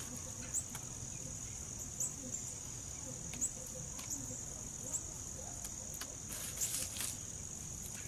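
Insects chirring steadily at a high pitch, with a few light clicks and rustles of hands working wet hypertufa.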